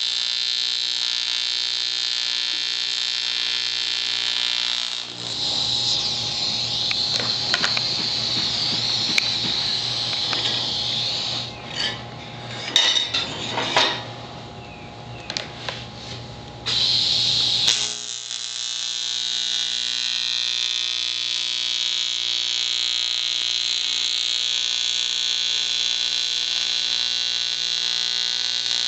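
Electric welding arc on aluminum brackets giving a steady, even buzzing hum. It stops about five seconds in, metal parts clink and knock while they are handled, and the arc buzz starts again about eighteen seconds in and holds steady.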